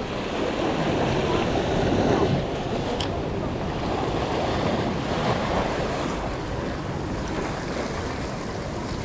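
Ocean surf washing and breaking over a rocky reef, swelling about a second or two in, with wind buffeting the microphone.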